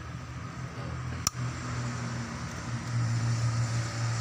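A steady low engine hum, getting a little louder after about three seconds, with one sharp click just past a second in.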